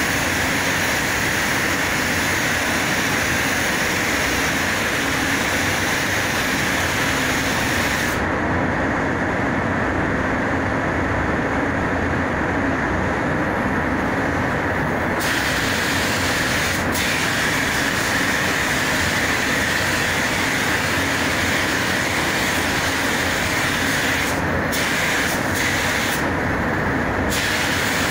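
Automotive paint spray gun hissing as it lays on clear coat over the steady noise of the spray booth's air flow. The spray hiss stops for several seconds about a third of the way through, then starts and stops in short bursts near the end as the trigger is released and pulled.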